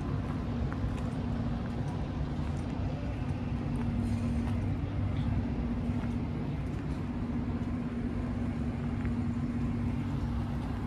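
Steady low rumble of city traffic with a constant low hum running under it.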